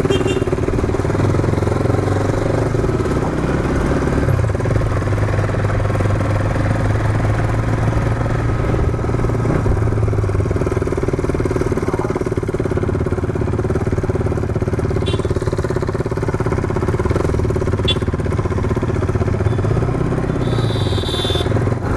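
Motorcycle engine running steadily at an even cruising speed, heard from on the bike while riding.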